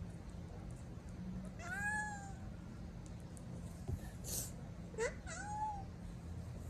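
Meowing: one long meow, rising then falling, about two seconds in, then two short meows close together about five seconds in.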